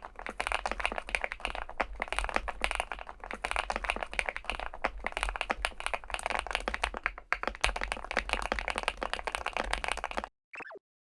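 Fast, continuous typing on a Weikav Stars75s aluminium-cased mechanical keyboard with PBT keycaps, many keystrokes a second, which stops abruptly about ten seconds in. A brief falling tone follows near the end.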